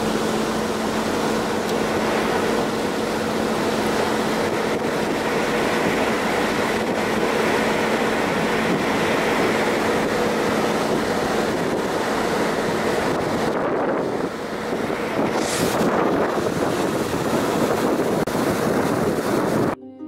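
Passenger excursion boat under way: a steady engine hum with the rush of the churning wake, and wind buffeting the microphone. A brief louder gust of hiss passes about three-quarters of the way through.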